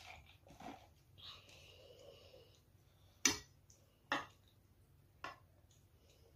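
A metal spoon scooping ramyeon broth, clinking against the bowl three times about a second apart.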